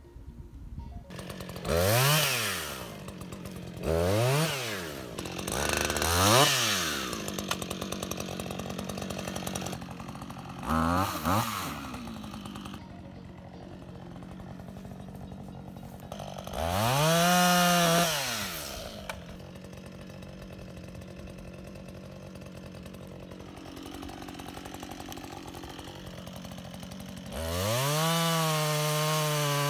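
Husqvarna 562 XP two-stroke chainsaw idling with about five short revs that rise and fall, then held at high revs near the end as it cuts into a fallen tree trunk.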